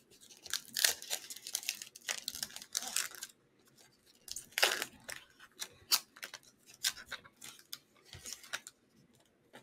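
Foil wrapper of a trading card pack being torn open and crinkled by hand: irregular crackling rustles with a short pause about three seconds in.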